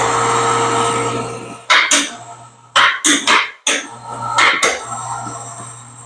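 A motor hums steadily as the awning is lifted on its ceiling strap, most likely an overhead electric hoist. Several sharp knocks and clunks from the awning's case break through it, and the hum fades a little toward the end.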